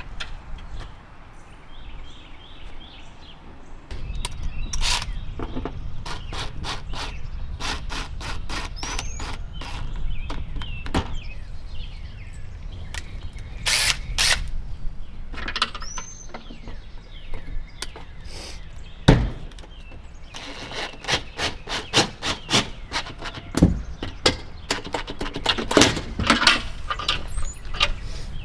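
Irregular metal knocks and clicks with a few short squeaks, from latch hardware being fitted and worked on steel-clad barn doors. The knocks come thicker in the last third.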